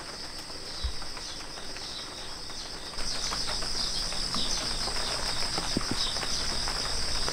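A chorus of insects chirping in a steady high pulsing drone, which gets louder about three seconds in.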